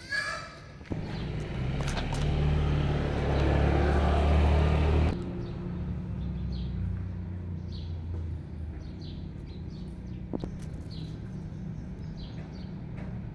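A motor vehicle's engine running close by, loudest for about four seconds and then cut off abruptly. After that comes a lower steady hum, with small birds chirping over it again and again.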